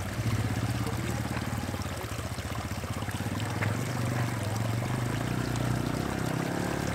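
Water trickling over rocks, with a small motorcycle engine running steadily underneath.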